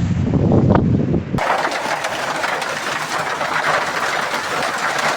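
Storm wind buffeting the microphone with a low rumble. About a second and a half in, it cuts to a dense, steady clatter of heavy hail and pouring rain.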